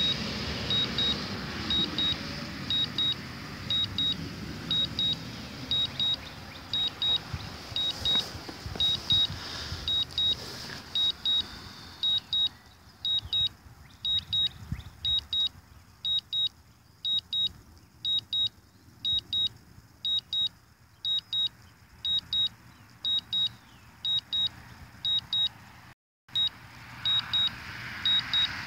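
DJI Phantom 4 return-to-home alarm from the remote controller: a high double beep repeating evenly a little faster than once a second, the warning that the drone is flying itself home after losing signal. Faint background noise underneath fades about halfway through, and the sound cuts out for a moment near the end.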